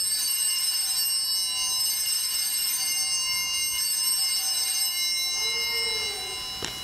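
Altar bells rung at the elevation of the host during the consecration, starting sharply and ringing on with many high, bright tones that fade over the last couple of seconds.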